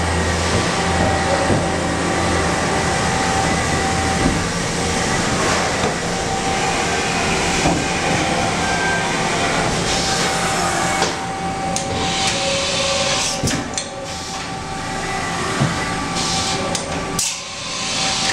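Steady running noise of a powered-up CNC vertical machining center and the machine shop around it, with a thin steady whine. A low hum stops about four seconds in, and scattered clicks and knocks come in the second half.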